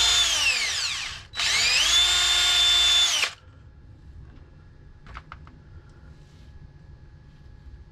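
Electric drill boring into a plastic skeleton bird's neck in two runs: the first winds down within the first second, then the drill spins up again and holds a steady whine for about two seconds before stopping abruptly. A few faint clicks follow.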